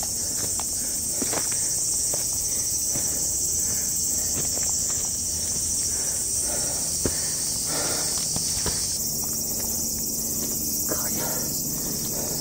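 A dense, steady, high-pitched chorus of insects, with footsteps on a dirt hiking trail under it.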